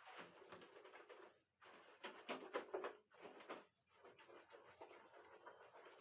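Hands rubbing and squeezing long hair with shampoo, an uneven run of soft rubbing strokes, with a louder flurry of quick squelching rubs in the middle.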